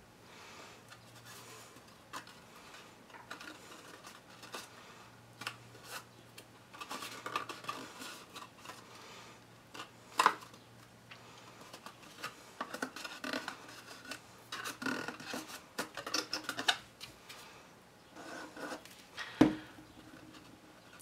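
Cut paper pieces being handled, folded and rubbed as glued tabs are pressed down, a run of scattered rustles, scrapes and light taps. There are two sharper knocks on the table, about ten seconds in and near the end, over a faint steady hum.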